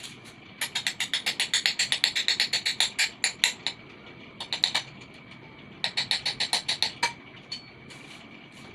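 Rapid runs of sharp clicks, about ten a second, in three bursts, as the impeller is fitted back onto a Shimizu water pump.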